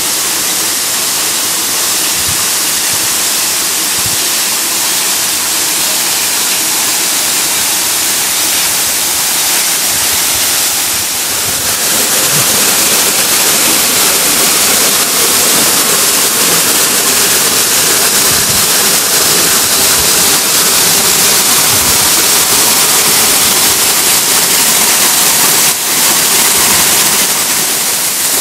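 Wet-weather waterfall pouring over a rock bluff, swollen by heavy rain: a loud, steady rush of falling water, a little louder from about twelve seconds in.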